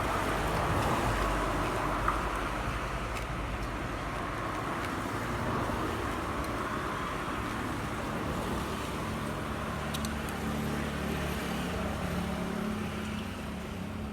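Sprinter diesel railcar train passing close by: a steady run of engine and wheel noise, with a low engine hum coming up in the second half.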